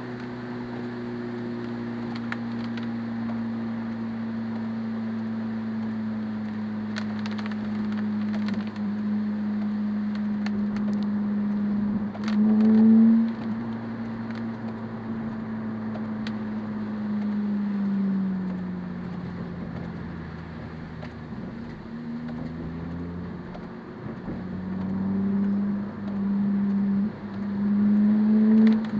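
Car engine running at a steady cruise, heard from inside the car, over the hiss of tyres on a wet road. The engine note swells loudly for a moment about 13 s in. Its pitch drops a little around 18 s, then it climbs and swells again in short pulls near the end.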